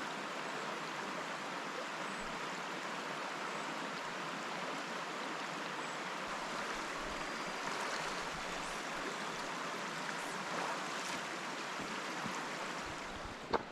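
Brook water rushing steadily, a constant even rush.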